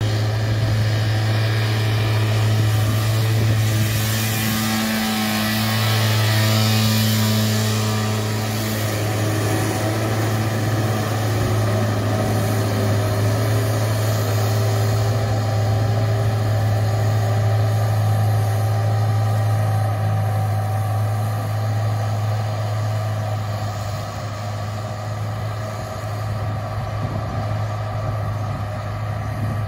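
Farm tractor running steadily as it mows grass with a tractor-mounted mower, a constant low engine hum that eases a little in the last several seconds.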